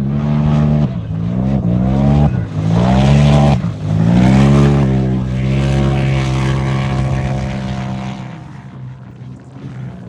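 Off-road race vehicle engine running hard, pitch climbing several times in the first half as it accelerates through the gears, with a steady lower engine note underneath. It then holds a steady pitch and fades away near the end.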